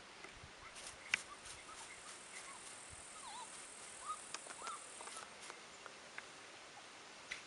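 Bracco Italiano puppy giving a few faint, short squeaky whimpers, with light clicks between them.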